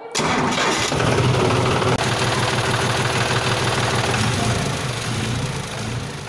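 Tractor engine sound effect: an engine starts abruptly with a noisy burst, then runs with a steady low rumble that slowly fades.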